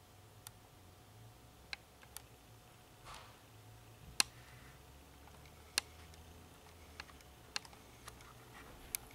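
Quiet room with sharp little clicks and ticks at irregular intervals, about nine in all, the loudest about four and six seconds in, and a brief soft rustle about three seconds in.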